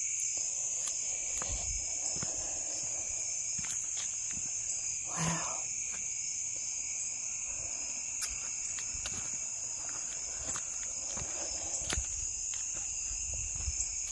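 Steady high-pitched trilling of crickets and other insects in an evening chorus, with scattered soft footsteps on dirt and leaf litter and a short soft noise about five seconds in.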